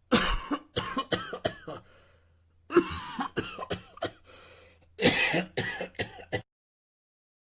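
A person coughing in three fits, each a quick run of several hard coughs.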